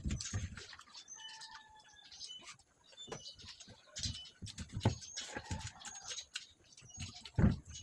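Close-up mukbang eating sounds: chewing and mouth smacks over fish fry and rice, as irregular clicks and soft thumps, with a few short high chirps in the background.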